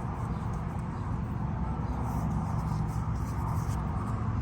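Steady low rumble of outdoor background noise with a faint low hum running through it.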